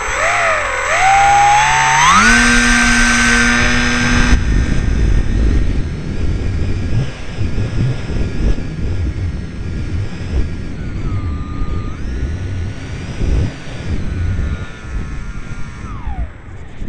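Radio-controlled model airplane's motor and propeller heard from on board. The whine rises in pitch over the first two seconds as the plane launches, then runs at a steady pitch under wind rushing over the microphone. The pitch dips briefly past the middle and falls away near the end as the motor is throttled back.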